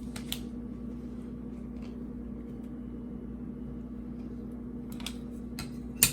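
Light plastic clicks from handling a magnetic one-touch card holder, ending about six seconds in with one sharp snap as the holder closes, over a steady low room hum.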